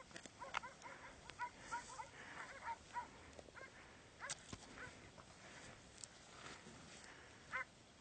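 Faint dogs barking at a bear they hold at bay: a quick run of short, high yaps in the first three seconds, then a few more scattered barks.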